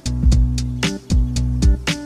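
Background music with a steady drum beat over held bass and melody notes.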